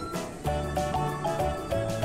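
Instrumental background music: a bright stepping melody over a bass line with a steady beat.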